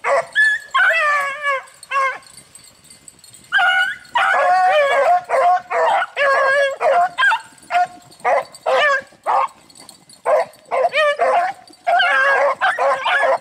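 A pack of rabbit-hunting beagles baying and yipping together, with drawn-out howling bawls among quick short barks.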